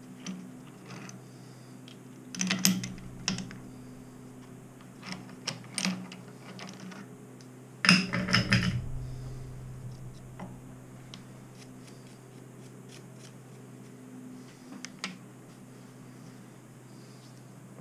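Scattered metallic clicks and clunks of steel parts and clamps being handled on a milling machine's rotary table, with a louder clatter of knocks about eight seconds in, over a steady low hum.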